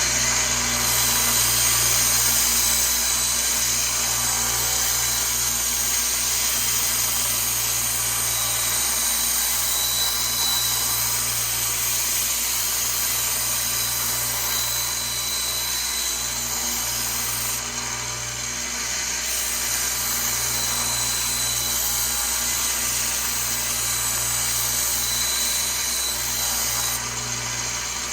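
AMK 75 sharpening machine running steadily with its motor hum and a faint high whine under a continuous grinding hiss, as a dented butcher-knife blade is ground to remove dings and clean up the edge.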